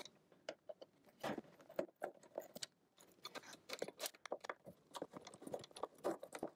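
Quiet, irregular metallic clicks, taps and scrapes of a screwdriver working at screws and parts being handled inside a Mac Pro's open metal case.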